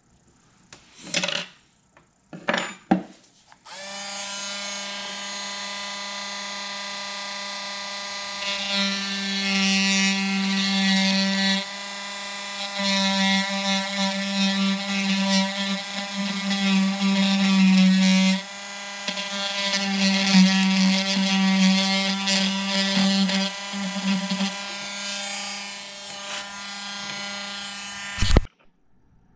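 Dremel rotary tool running with a steady high whine, getting louder in several stretches as the bit grinds into the juniper trunk to carve a shari, and stopping abruptly near the end. A couple of short handling knocks come before it starts.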